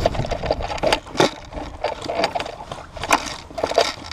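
Footsteps on dry dirt ground, an irregular run of scuffs and sharp clicks.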